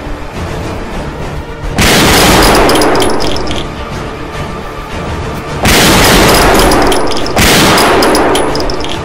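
Three loud gunshot sound effects over background music: one about two seconds in, one near six seconds and a third just under two seconds later, each with a long fading tail.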